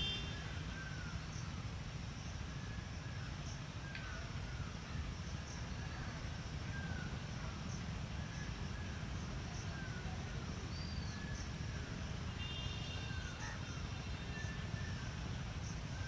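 Distant MLW RSD-34 diesel locomotive running with a low, steady rumble as it approaches slowly, while birds call with short chirps about once a second.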